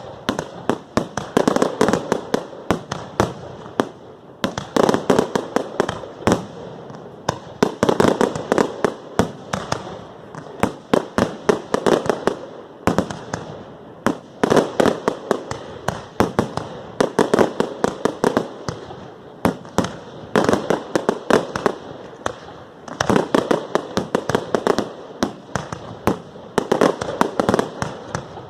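Fireworks display: rapid volleys of bangs and crackles, many per second, coming in waves of a few seconds with short lulls between.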